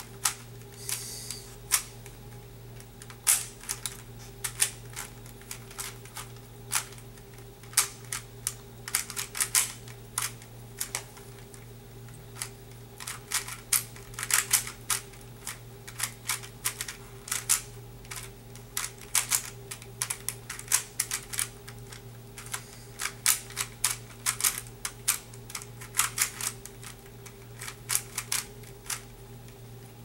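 A 3x3 Rubik's Cube being turned quickly by hand: irregular runs of sharp plastic clicks and clacks as the layers are twisted round.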